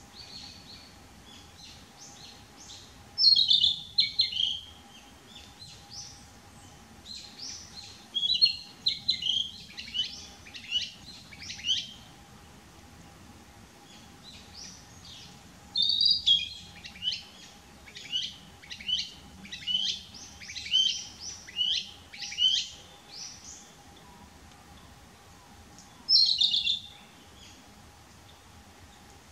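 Male narcissus flycatcher singing. Four bouts of quick, high whistled phrases come with pauses of a few seconds between them, and fainter bird notes fill the gaps.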